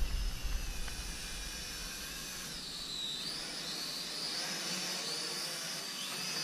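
Small quadcopter drone's motors and propellers whining overhead, the pitch wavering up and down as it manoeuvres, with a dip and rise about three seconds in. A low rumble fades out in the first second.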